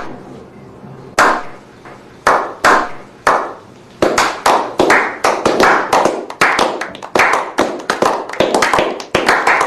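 A loud series of sharp percussive hits, each with a ringing tail. Four or five come spaced apart at first, then from about four seconds in they arrive about three a second.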